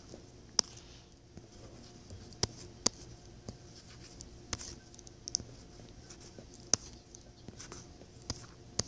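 Drawing taps on a tablet touchscreen: about eight sharp, irregularly spaced clicks as strokes are laid down, over a faint steady hum.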